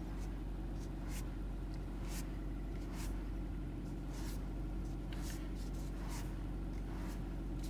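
Kia Rio's engine idling steadily, heard from inside the cabin, with short faint swishes about once a second. No knock comes from the steering: the newly replaced steering rack has cured it.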